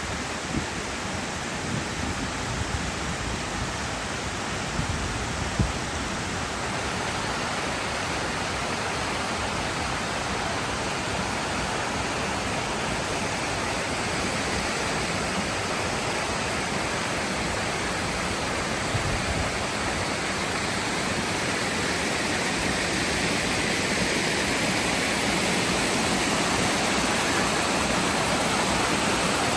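Waterfall water rushing steadily, growing slightly louder in the last third, with a couple of faint knocks early on.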